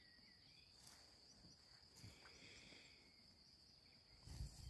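Near silence in a grassy field: the faint steady high drone of insects in the grass, with a few faint chirps and a soft low rumble near the end.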